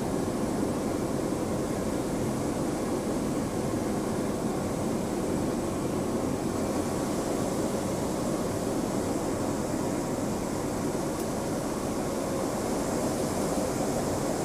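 Cessna 208 Caravan's PT6A turboprop engine and propeller running steadily, heard from inside the cockpit on the approach to landing. It makes a constant dense rumble with a faint high whine.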